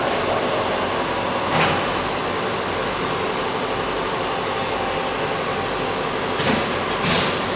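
Steady mechanical running noise with a faint hum, broken by short whooshes about a second and a half in and twice near the end.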